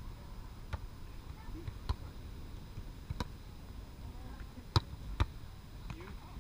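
A volleyball struck by players' hands and forearms during a rally: five sharp slaps roughly one to one and a half seconds apart, the two loudest close together near the end, over a steady low rumble.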